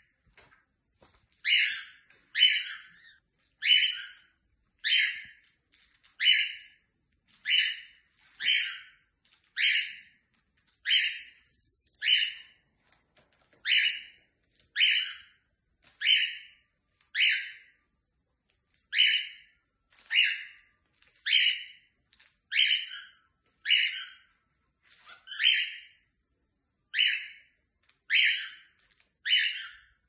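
Cockatiel calling over and over, one short, shrill call about every second.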